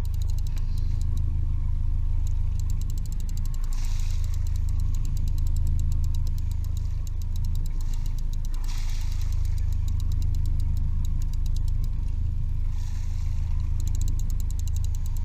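Fishing boat's engine running steadily with a low hum, while water slaps and splashes against the hull three times.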